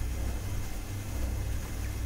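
A steady low mechanical hum with no distinct knocks or strikes.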